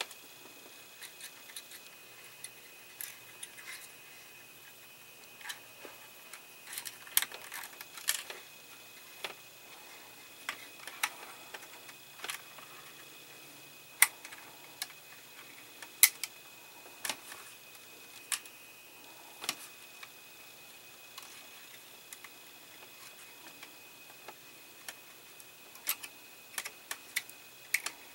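Irregular small clicks and taps of hands handling wires and plastic parts, routing a four-wire bundle under a scale-model dashboard. A few sharper clicks stand out in the middle and near the end.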